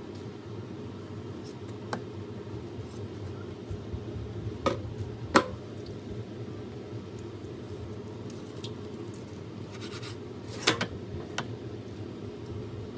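Knife cutting and trimming raw chicken on a wooden cutting board: soft scraping and squishing of the meat, with a few sharp knocks of the blade against the board, two close together near the middle and one more later. A steady low hum sits underneath.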